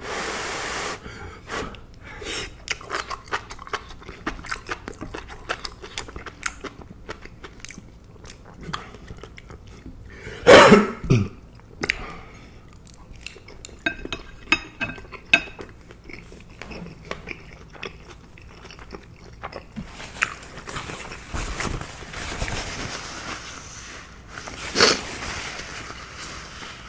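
A person chewing food close to the microphone: wet mouth clicks and smacks, with a brief louder throaty sound about ten seconds in.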